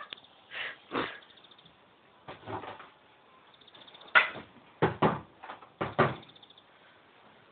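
A scattering of short knocks and bumps, about eight in all, two of them in quick pairs.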